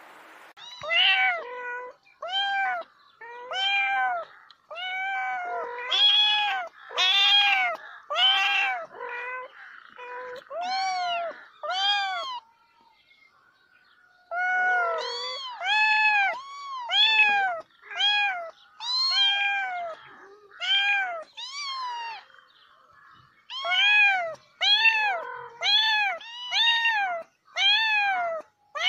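A cat meowing over and over: short calls that rise and then fall in pitch, about one a second, with a pause of about two seconds near the middle.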